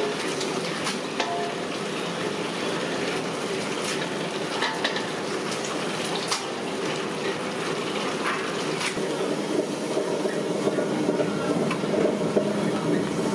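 Busy cooking-area background: a steady wash of noise with a few scattered sharp clinks, like dishes or utensils.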